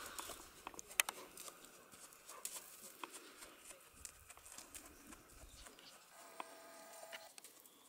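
Faint hoofbeats of a Friesian horse trotting under a rider on a sand arena, heard as scattered, irregular soft thuds and clicks, the sharpest about a second in.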